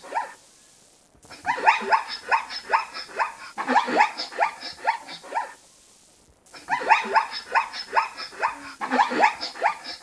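Zebra calling: a rapid series of short, barking yelps, each dropping in pitch. The calls come in two runs of about four seconds, with a pause of about a second between them.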